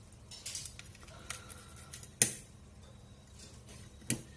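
Small plastic clicks and scraping as the end cap of a Xiaomi Mi 10000 mAh power bank's casing is worked loose by hand, with a sharp snap about two seconds in and another near the end.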